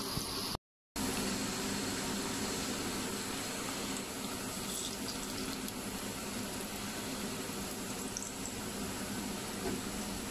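Hot oil sizzling steadily as chicken and cabbage pakoras fry in a pan. The sound cuts out completely for a moment about half a second in.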